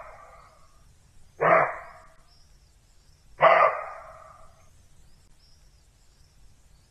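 Roe deer barking: two short barks about two seconds apart, with the tail of an earlier bark fading out at the start. Faint bird chirps can be heard behind them.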